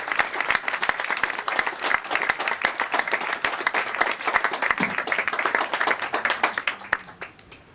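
Crowd applauding, dense clapping that thins out and fades away near the end.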